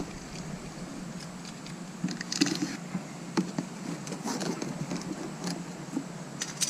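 A cardboard box being opened and its packaging handled: scattered rustles, scrapes and light knocks at irregular intervals.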